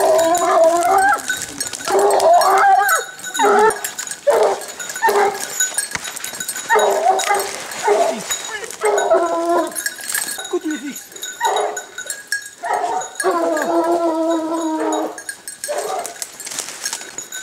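Scent hounds giving tongue while working a wild boar's trail: a string of short bays, with one longer, held howl near the end.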